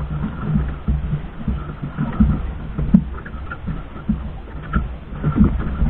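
Water slapping and knocking irregularly against the hull of a small outrigger fishing boat, a low uneven thumping over a steady rumble.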